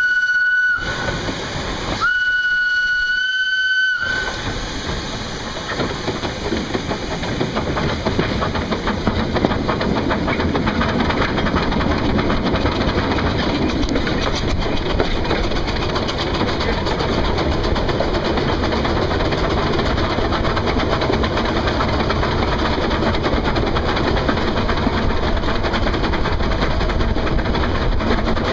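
Narrow-gauge steam locomotive's whistle: one blast ending just under a second in, then a second blast of about two seconds that settles slightly higher in pitch. The locomotive and train then run on steadily, with wheels clattering over the rails.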